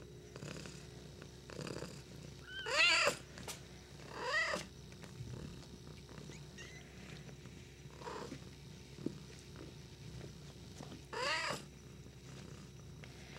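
RagaMuffin cats mewing three times, each short call rising then falling in pitch: about three seconds in, again a second and a half later, and near the end. A steady low purr runs underneath.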